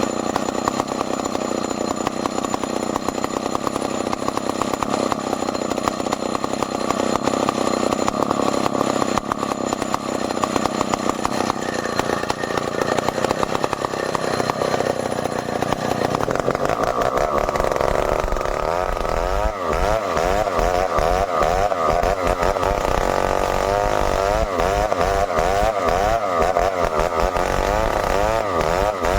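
Stihl 070 two-stroke chainsaw running continuously, with the engine note changing about halfway through and then wavering rapidly up and down in pitch, typical of the saw working through a cut in merbau timber.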